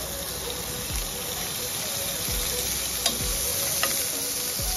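Butter melting and sizzling in a hot non-stick pan, a steady frying hiss, with a couple of light clicks about three and four seconds in as more butter is spooned in.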